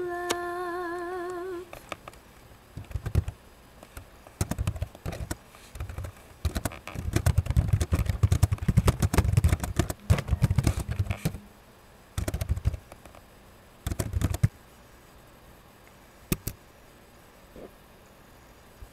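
A woman's held sung note with vibrato trails off in the first second and a half; then hard, fast typing on a computer keyboard in irregular bursts, each keystroke a click with a dull thud, busiest in the middle and stopping a few seconds before the end.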